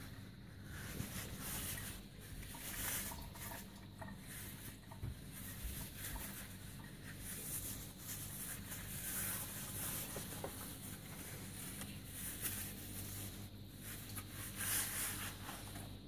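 Cotton straining cloth rustling and crinkling in irregular bursts as it is handled and peeled off a block of freshly pressed white cheese, over a steady low hum.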